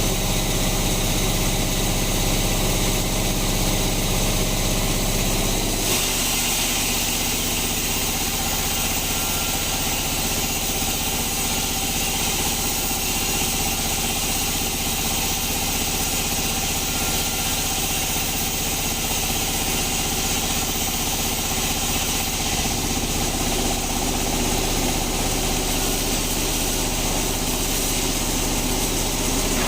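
Band sawmill running: a steady, loud, engine-like hum with a high hiss over it. About six seconds in the hiss grows brighter and the hum changes pitch.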